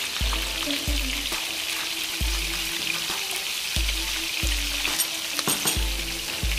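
Steady sizzle of food frying in hot oil, over background music with a regular deep bass beat; a few light clicks about five seconds in.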